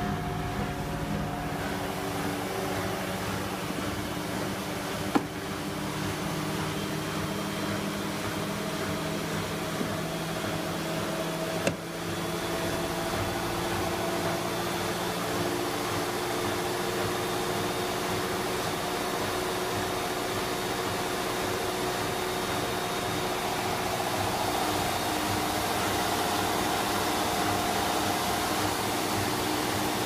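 Hoover WDYN 11746 PG8 washer-dryer spinning its empty drum on its inverter motor: a steady whirring hum with several even tones over a smooth rush. Two brief knocks, one about 5 seconds in and one about 12 seconds in.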